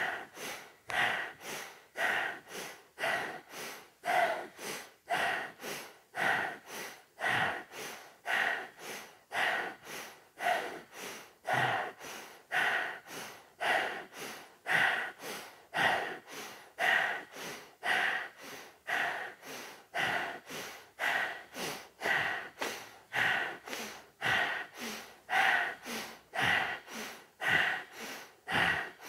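Kundalini breath of fire: rapid, forceful breathing through the nose with equal inhales and exhales, in an even rhythm of about two breaths a second.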